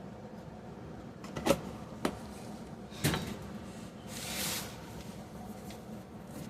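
Handling noises: three sharp knocks or clicks in the first three seconds, then a short scraping rustle about four seconds in, in a small room.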